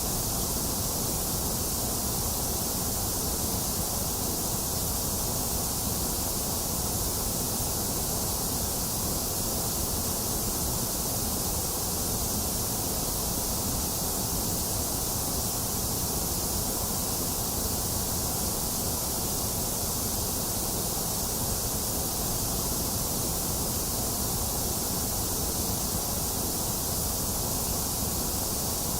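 Steady, unchanging generated white noise: an even hiss across the whole range, with a slight hollow in the upper middle.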